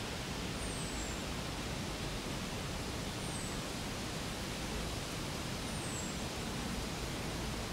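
Steady outdoor rushing noise, with a short, high, falling whistle three times, about every two and a half seconds.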